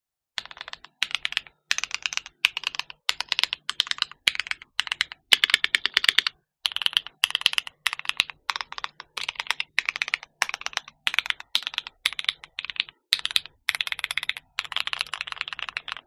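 Keychron Q1 aluminium 75% mechanical keyboard with Gateron Phantom Red switches and GMK Blue Samurai keycaps being typed on in quick runs of keystrokes separated by short pauses. The case is modded with foam and tape to damp its hollow, pinging sound.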